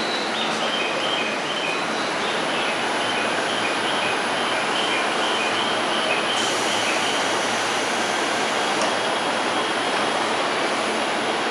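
JR East 253-1000 series electric train standing at a station platform: a steady rushing hum with no change in level. A run of short, high chiming notes in two alternating pitches sounds during the first few seconds.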